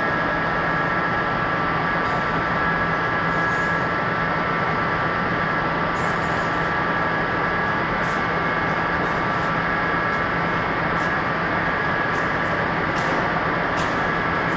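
Heavy machinery running steadily: an even rushing noise with a constant low hum and a few steady high whining tones, and some faint clicks here and there.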